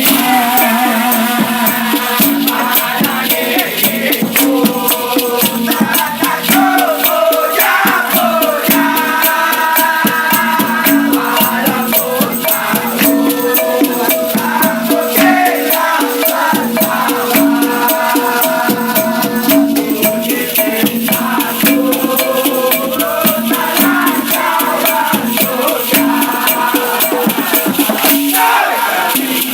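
Music: an instrumental passage of a song, with a shaker keeping a fast, steady rhythm under a held and gliding melody line.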